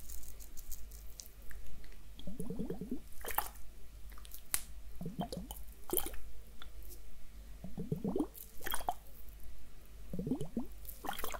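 Liquid sloshing and glugging inside a pair of glass facial ice globes as they are tipped back and forth. It comes in short gurgles every second or two, with a few light clicks.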